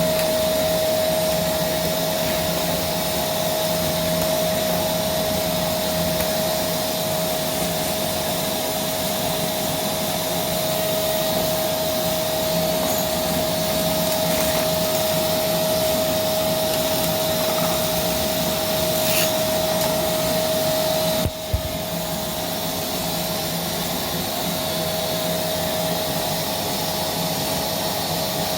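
Vacuum cleaner (hoover) running steadily, a continuous motor whine with a strong steady tone. It briefly dips with a small knock about three-quarters of the way through, then carries on.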